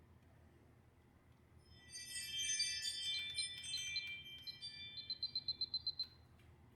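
A bright chiming jingle of many high notes lasting about four seconds, ending in a quick run of about ten short repeated high beeps.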